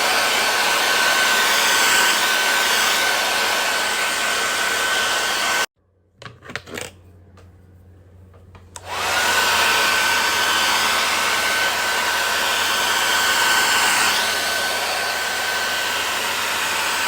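Gaabor hand-held hair dryer blowing on its first level with the nozzle fitted: a steady rush of air over a thin, high motor whine. It stops suddenly about five and a half seconds in, a few faint clicks follow, and about three seconds later it starts again, its whine rising quickly to a steady pitch.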